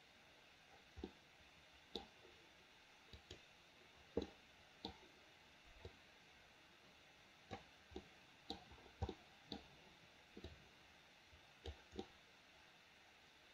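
Faint computer mouse clicks, a dozen or so at irregular intervals, over a low steady hiss.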